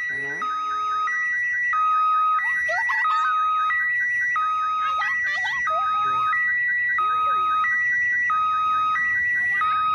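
Railway level-crossing warning alarm sounding, signalling an approaching train: an electronic two-tone alarm alternating steadily between a high and a low note about every two-thirds of a second.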